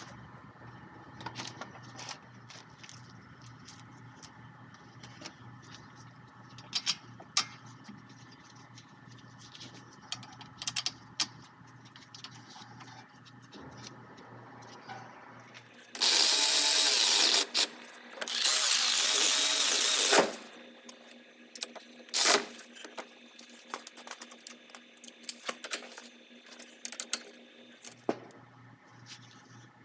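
Cordless ratchet running in two short bursts of a second and a half to two seconds, tightening the rear brake caliper bolts, with a shorter burst a couple of seconds later. Light clinks and clicks of metal parts and tools being handled come before and after.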